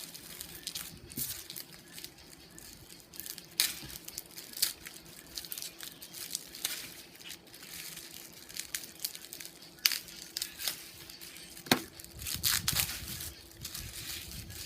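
Plastic packaging on a fishing rod crinkling and rustling as it is handled and pulled off, with a few sharp clicks.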